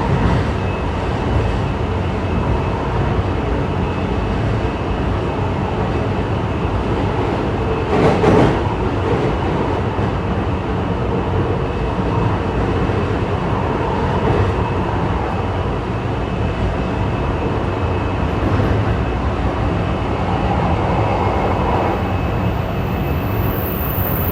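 Running noise of a JR East E235-1000 series electric multiple unit heard inside the passenger car, a steady rumble of wheels on rail. About eight seconds in there is one louder, brief clatter.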